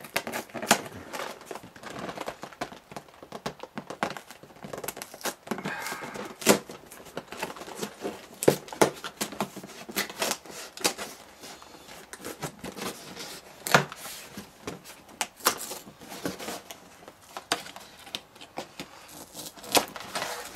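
Cardboard LEGO set box being opened by hand: the end flap is worked loose and pried open, with irregular scraping, crinkling and sharp clicks of cardboard.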